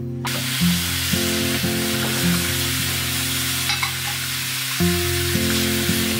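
Meat sizzling on a barbecue grill, a steady hissing crackle that starts about a quarter second in, with background music.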